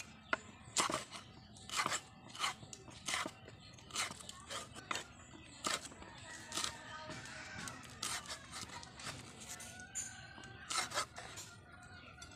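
A large kitchen knife slicing through a red pepper on a wooden chopping board: about a dozen crisp cuts, each ending in a knock of the blade on the board, one every half second to a second, stopping shortly before the end.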